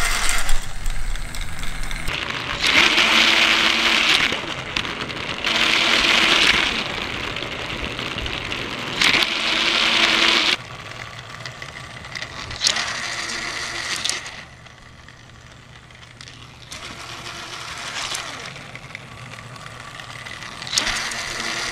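Battery-powered TrackMaster toy train engines whirring along plastic track, their small motors and gears buzzing. The sound swells as a train passes close, three loud passes in the first ten seconds, then fainter ones.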